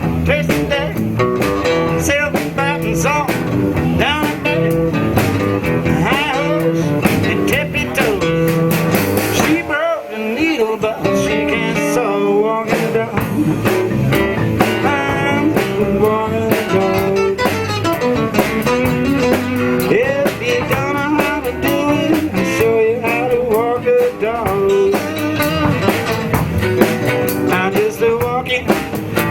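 Blues band playing an instrumental passage, with a guitar playing bending lead lines over the band. The bass and drums drop out briefly about ten seconds in, then come back.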